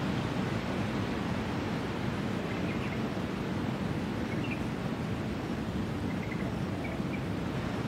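Steady wash of distant surf, a low, even rush without breaks, with a few faint, brief high chirps.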